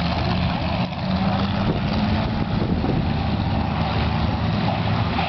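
Several race car and truck engines running together in a steady mixed rumble. One engine's note stands out for a second or two, about a second in.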